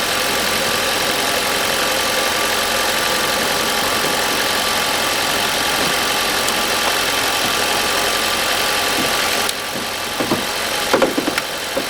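Car engine idling steadily after a jump start from a portable lithium jump-starter pack, having failed to start on its cold, dead battery. The sound drops a little about two-thirds of the way through, with a few faint short sounds near the end.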